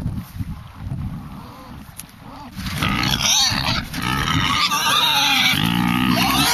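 Pigs squealing loudly and continuously, excited because they expect a feed. The squealing breaks out about three seconds in, after a low rumble.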